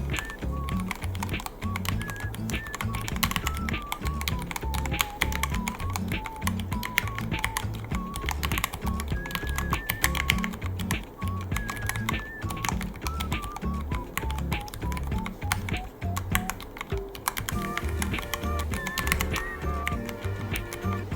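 Continuous, irregular typing on a Ducky One 3 mechanical keyboard: a quick patter of key clicks. Background music with a melody and a steady bass beat plays underneath.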